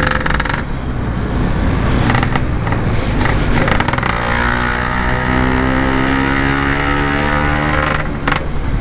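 Yamaha RX-King single-cylinder two-stroke motorcycle engine running under way through its stock-style exhaust, held at a fairly steady pitch with a brief dip near the end.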